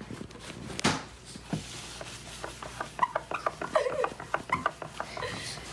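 Kitchen handling sounds: bowls, a baking pan and utensils knocked and clinked on a counter, with one sharp knock about a second in and a quick run of clinks and taps near the middle.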